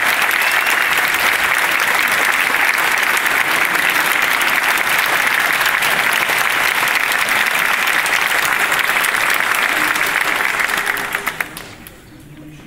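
A large audience applauding steadily, a dense patter of many hands clapping that dies away sharply about eleven seconds in.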